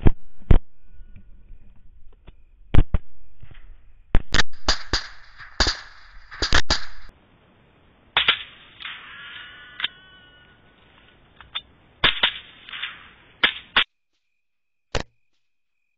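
A string of about fifteen sharp rifle shots fired at feral hogs, some in quick pairs and others a second or more apart.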